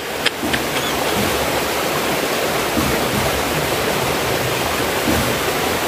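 Shallow stream water rushing steadily over rocks close by, an even, unbroken wash of sound.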